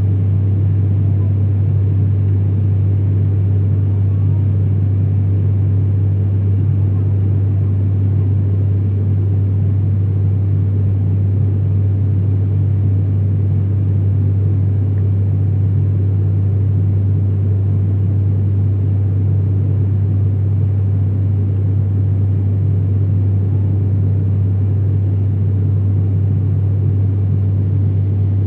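Turboprop airliner's engine and propeller droning steadily in flight, heard from inside the cabin: a loud, constant low hum that does not change.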